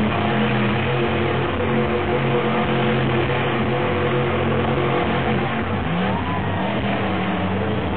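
Monster truck engine running steadily, with a brief rise in revs about six seconds in.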